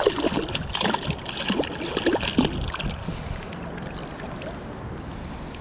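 A brown trout thrashing and splashing in shallow river water at the angler's hand for about the first three seconds, then the steady rush of the flowing river.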